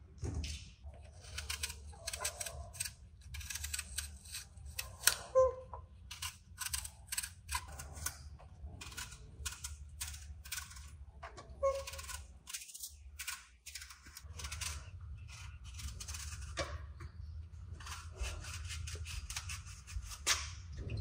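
Knife cutting fruit on a cutting board: irregular, quick taps and clicks of the blade meeting the board.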